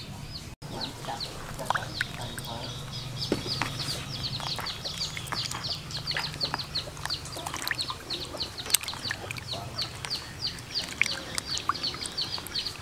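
Chicks peeping: a constant run of short, high, falling chirps, several a second. Under it, water sloshing and splashing as live fish are rubbed and washed by hand in a plastic basin.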